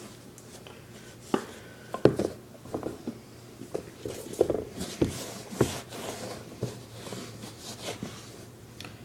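Irregular light knocks and brief rubbing as a leather sneaker is handled and wiped down with a dry cloth after conditioning; the loudest knock comes about two seconds in.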